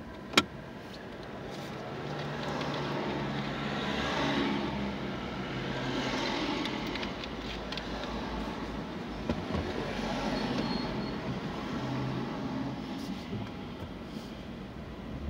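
Road traffic heard from inside a car waiting at a red light: a van and a box truck drive across the junction in front, over a steady low engine hum. A single sharp click about half a second in.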